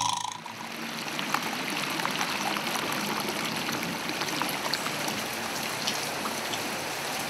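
Running water trickling steadily, with faint small splashes and ticks through it.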